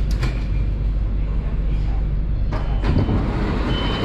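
BTS Skytrain car heard from inside, with a steady low rumble from the running train. Two sharp clicks come right at the start, and the sound grows noisier and fuller about two and a half seconds in.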